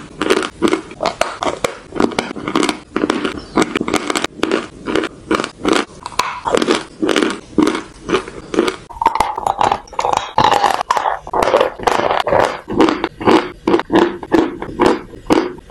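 Close-miked biting and chewing of dry eating chalk: a rapid, even run of crisp crunches, about two to three a second, with no pause.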